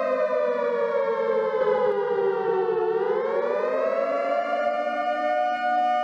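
Outdoor tornado warning siren sounding a loud, multi-tone wail. Its pitch sinks to a low point about three seconds in, then climbs back up and holds steady.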